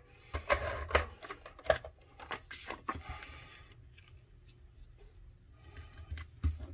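Hands working cardstock and patterned paper on a cutting mat: a run of light taps and clicks in the first three seconds, then quieter pressing and smoothing of the paper, with a few more taps near the end.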